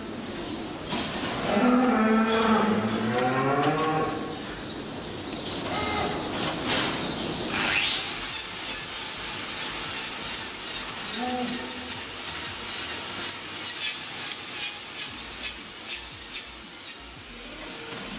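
A cow mooing loudly during the first four seconds, with a short moo again about eleven seconds in. From about eight seconds a steady high hiss with crackle follows: an angle grinder with a trimming disc working on the cow's hoof.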